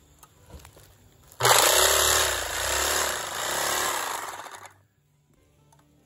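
Handheld electric bag-closing sewing machine running for about three seconds as it stitches the top of a woven sack shut. It starts abruptly and cuts off suddenly.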